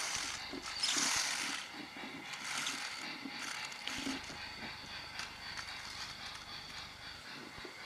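Pull-back toy tram's spring motor whirring through its gears as the toy runs. It is loudest about a second in and then fades as the spring unwinds.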